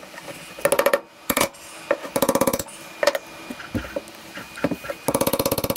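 A flathead screwdriver worked with a hammer under the lip of a pressed-in brake caliper bracket boot, metal on metal: three bursts of quick rattling clicks, one at the start, one about two seconds in and one at the end, with a few single sharp knocks between them.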